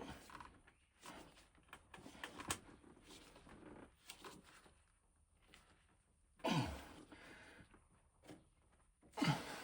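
Small clicks and scrapes of hands working a threaded PVC pipe fitting back into place, with two short grunts falling in pitch, about six and a half and nine seconds in.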